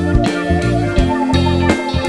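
Instrumental background music led by guitar, over bass notes and a regular beat.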